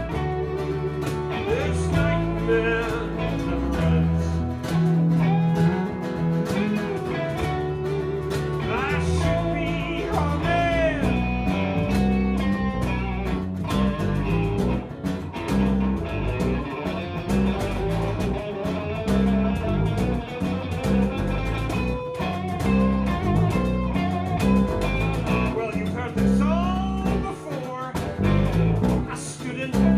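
Live acoustic and electric guitars playing an instrumental break in a bluesy song.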